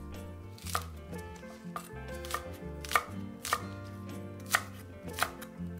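Cleaver slicing spring onions on a wooden chopping block: about nine separate chops of the blade striking the board, unevenly spaced.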